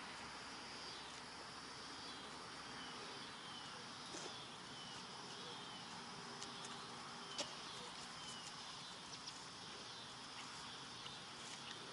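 Faint outdoor ambience: a steady high insect drone, a few short falling chirps, and scattered small clicks, the sharpest about seven seconds in.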